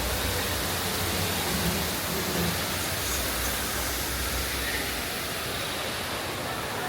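Steady rushing noise with an unsteady low rumble beneath it.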